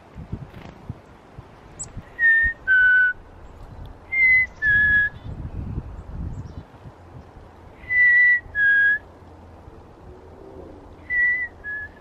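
A person whistling a two-note falling call, a higher note then a lower one, four times over, in imitation of a chickadee's 'fee-bee' song to call wild birds to a hand of seeds.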